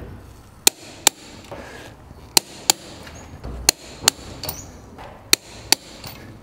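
Click-type torque wrench tightening wheel spacer lug nuts: sharp metallic clicks in pairs, four pairs about every second and a half, each click signalling that a nut has reached the set torque of 89 foot-pounds.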